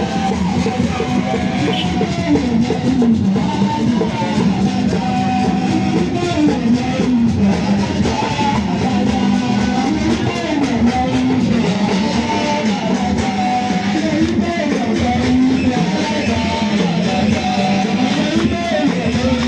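Music with a winding melody over plucked-string accompaniment, playing steadily throughout.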